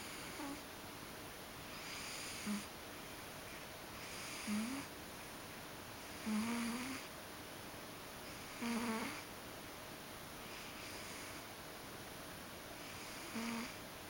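Ragdoll cat snoring in its sleep: a breathy snore about every two seconds, each a soft hiss that ends in a brief low tone.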